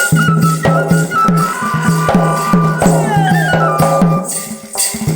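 Traditional Odia folk music: a flute plays a melody over a steady low tone and a regular drum and rattle beat.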